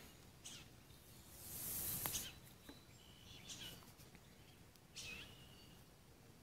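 Quiet rustling of paracord being drawn through a knot, with one longer pull about two seconds in. Faint bird chirps are heard behind it.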